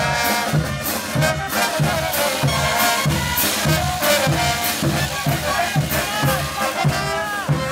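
Brass band playing festive folk music, brass over a steady drum beat of about two strokes a second.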